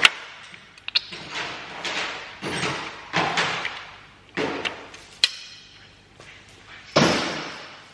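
An irregular series of knocks and bangs, about eight of them, each dying away with an echoing tail. About five seconds in, a sharp metallic click leaves a short ring.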